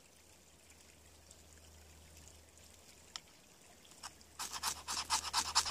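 A knife spine scraped fast along a ferrocerium rod, about seven strokes a second, beginning about four seconds in after a single click a little past three seconds: striking sparks onto fatwood shavings to light them.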